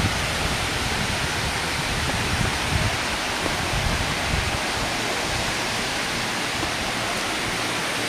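Steady rush of falling water at the head of a high waterfall, with an uneven low rumble underneath.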